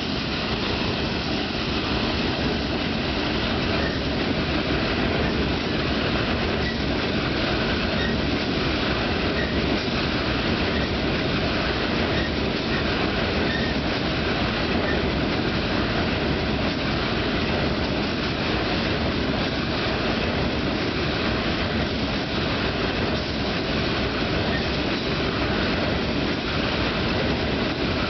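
Coal train's aluminum coal cars rolling past close by: steady, unbroken noise of steel wheels on the rails as car after car goes by.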